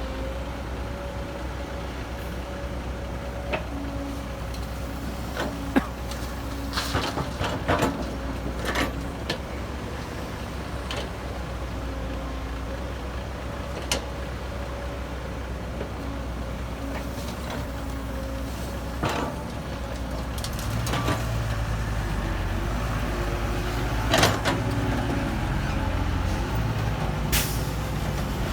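Heavy diesel earthmoving machinery, dump trucks and a bulldozer, running steadily with scattered metallic clanks and knocks. A deeper engine note grows louder about twenty seconds in.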